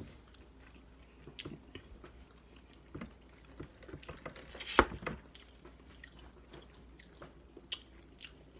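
People chewing food close to the microphone, with small mouth noises and scattered soft clicks. One sharp knock a little under five seconds in.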